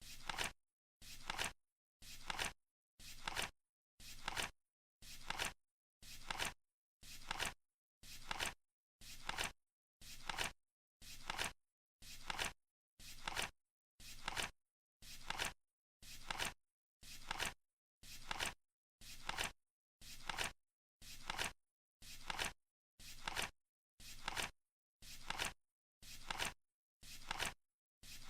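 Flip clock counting down, its cards flipping once a second in an even rhythm, each flip a short sound that cuts off sharply.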